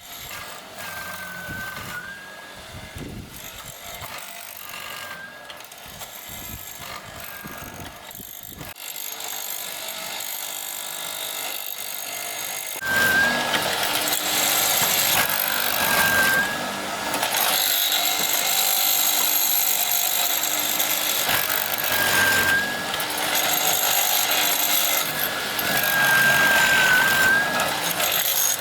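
Power tool working wood, its high motor whine dipping briefly in pitch several times as it takes load, over a steady hiss; it grows louder about halfway through.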